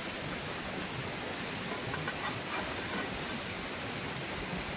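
Steady outdoor hiss, with a few faint light taps and scrapes about halfway through as a steel pry bar is worked against a mini excavator's rubber track to lever it back on.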